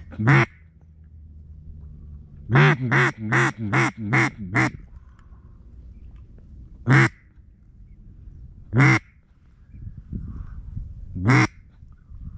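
Duck call blown in quacks: one quack, then a quick string of five, then single quacks about two seconds apart.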